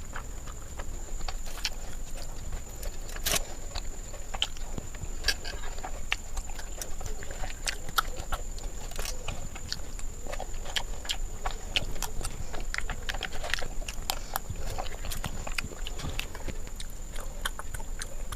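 Close-miked eating of Indian sweets: irregular wet clicks and smacks of chewing and mouth noises, with a steady high-pitched whine underneath.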